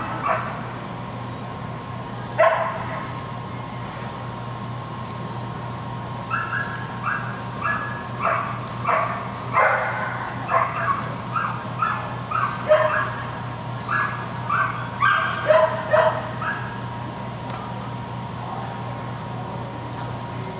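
Dog barking: a single bark, then a quick series of short barks at about two a second that runs for some ten seconds before it stops. A steady low hum sits underneath.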